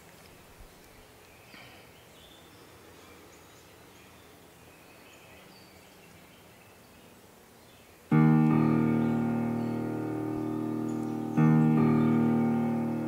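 Faint woodland ambience with a few bird chirps, then about eight seconds in an electronic keyboard plays a sustained piano chord that slowly fades, followed by a second chord about three seconds later.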